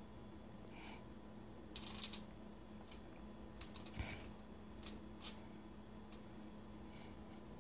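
Aluminium foil on a baking sheet crinkling in short crackles as hands press a ball of cookie dough flat onto it: a cluster about two seconds in, more around four seconds, and two quick ones just after five. A faint steady hum sits underneath.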